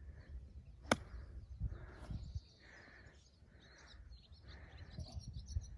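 Sand wedge striking a golf ball on a short pitch from the grass: one sharp click about a second in. Under it, a low wind rumble on the microphone and a bird chirping over and over.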